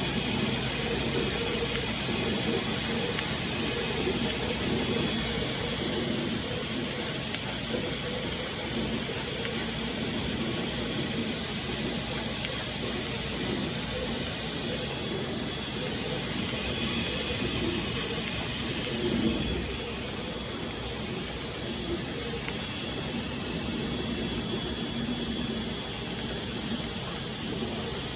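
Large-format CNC cutting machine running, a steady even machine noise that stays much the same throughout, slightly quieter from about twenty seconds in.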